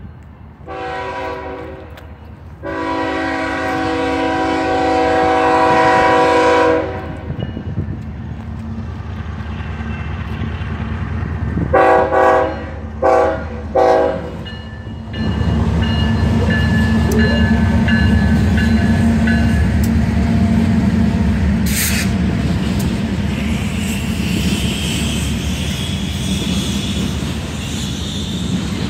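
An approaching BNSF freight train's diesel locomotive sounds its multi-tone air horn: a short blast, then a long one of about four seconds, and about ten seconds later three short blasts. The locomotives' engines then rumble loudly past, followed by the steady rolling of tank cars on the rails, with a high wheel squeal near the end.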